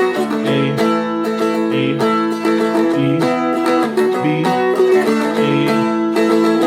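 Seagull Merlin, a small four-string strummed dulcimer-type instrument, strummed steadily through a simple three-chord progression of E, B and A, about two strums a second with the strings ringing on between strokes.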